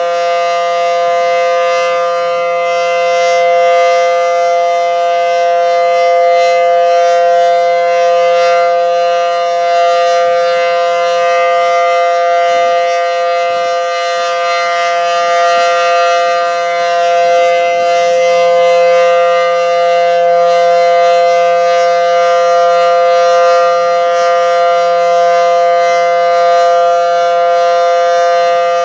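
Federal Signal SD10 outdoor warning siren sounding a steady tone at full pitch, its level swelling and fading gently, during a routine monthly siren test.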